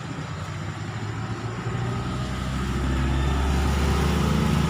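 A motor vehicle's engine running with a low rumble, growing louder about halfway through.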